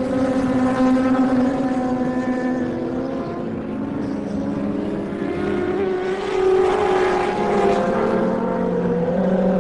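Racing superbike engines at high revs as several bikes run through the circuit. The engine note shifts up and down in pitch and grows louder about six seconds in as the bikes pass.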